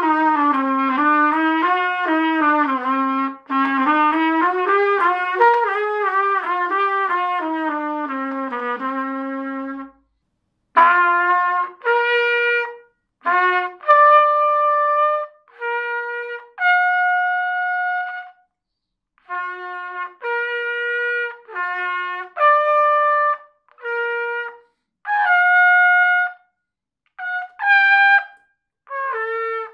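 A beginner playing solo trumpet. For about ten seconds it is a continuous run of quickly changing notes in a low register. After a short break comes a slower, higher melody of separate held notes with short gaps between them.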